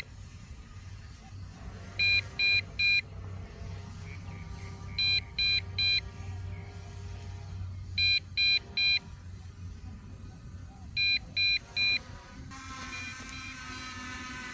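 JJRC EPIK X5 Pro drone's remote controller beeping a warning in groups of three short high beeps, about every three seconds, while the drone returns home and lands itself. A steady whir with several tones comes in near the end.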